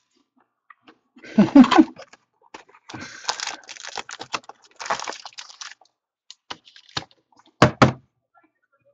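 A cardboard box of trading-card packs being handled and opened: a thump as it is handled, then the lid and packs scraping and rustling as they slide out, and two sharp knocks near the end as packs are set down on the table.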